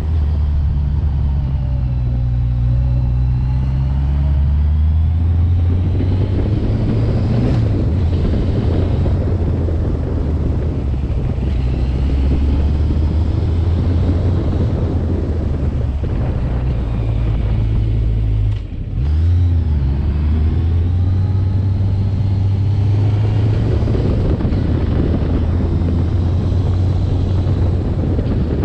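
Vehicle engine running under way, its pitch sinking and rising with the throttle. About nineteen seconds in the sound briefly drops away, then the engine note climbs again.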